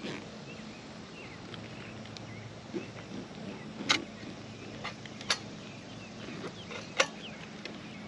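Sharp knocks and clinks of a portable disc golf basket's pipe sections being handled and fitted together, the three loudest about four, five and seven seconds in, over a steady low hum.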